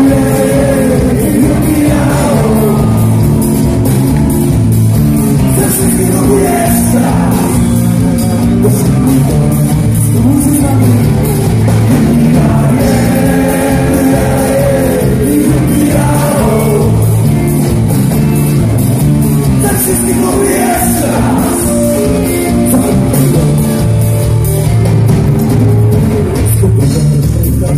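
Live folk-rock sea-shanty song: a man singing over electric and acoustic guitars and bass guitar, with a steady beat.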